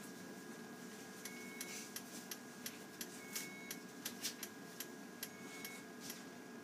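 A short electronic beep from hospital monitoring equipment repeats about every two seconds over a faint steady hum, with irregular sharp clicks in between.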